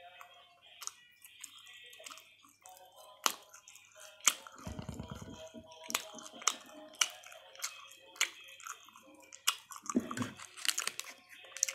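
Close-up chewing of a toasted sandwich, with sharp crunches of the toasted bread scattered through.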